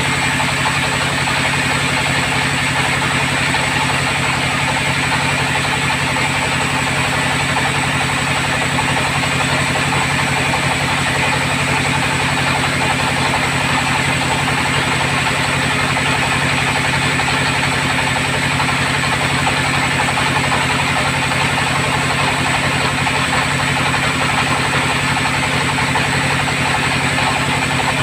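Log bandsaw mill running steadily while sawing hard acacia timber: an even machine hum under a constant sawing rush, with no break or change.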